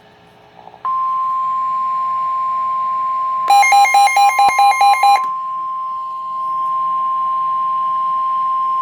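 Weather radio warning alarm tone: one steady, high-pitched tone of about 1050 Hz starting about a second in, signalling that a warning is about to be read. For under two seconds in the middle, a rapid buzzy electronic beeping of about five beeps a second sounds over it.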